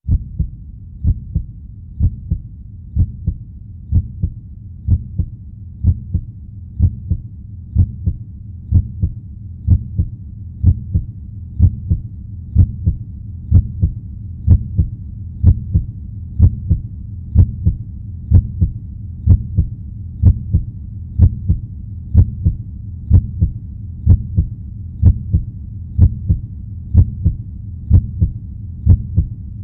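Heartbeat sound effect: a steady low lub-dub, a close pair of thumps about once a second, over a faint low rumble.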